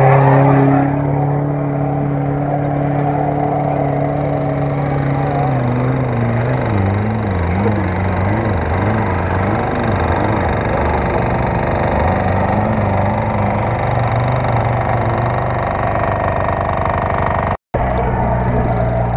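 Off-road 4x4's engine running steadily, then revving up and down over and over as the vehicle works across rough ground. The sound cuts out for an instant near the end.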